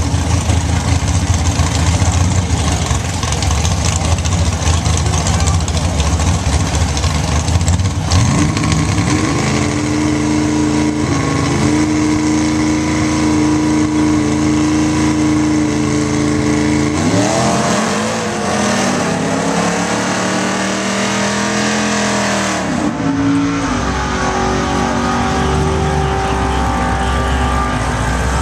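Drag car's engine running loud: a rumbling idle, then held at high revs for several seconds, then revved up and down a few times before settling.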